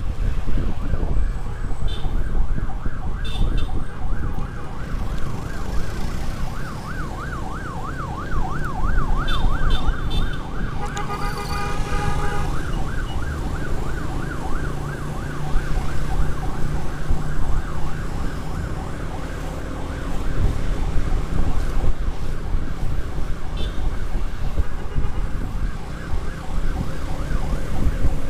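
Electronic emergency siren in a fast yelp, slowing to a slower wail for a few seconds about a third of the way in, with a horn blast about twelve seconds in. Wind rush and engine rumble from a moving motorcycle run underneath.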